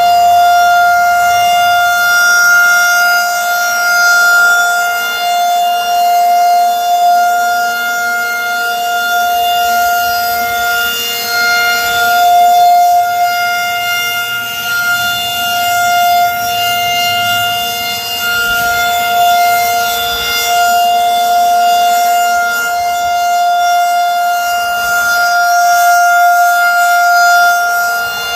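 Federal Signal 2001-130 rotating electro-mechanical tornado siren sounding its steady full-alert tone. The pitch holds on one note while the loudness swells and fades every few seconds as the rotating head sweeps past.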